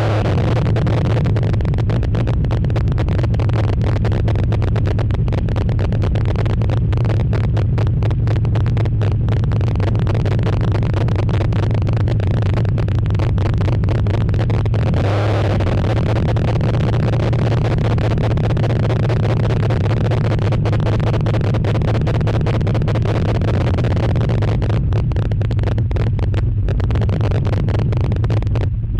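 Chevy V8 engine in a Nissan Frontier pickup running steadily, a loud, even low drone with crackling through it.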